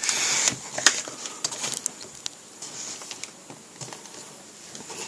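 Typing on a computer keyboard: irregular clicks of keystrokes, after a short rustling burst at the start.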